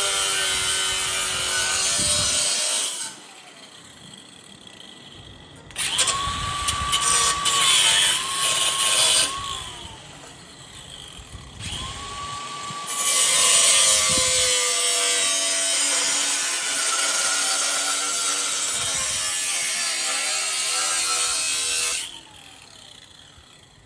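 DeWalt angle grinder cutting sheet metal in three runs with short pauses between. The motor's whine sags and recovers as the wheel bites into the steel.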